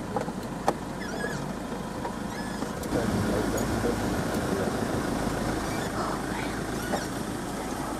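Open safari game-drive vehicle's engine running steadily as it drives along a dirt track, growing louder about three seconds in.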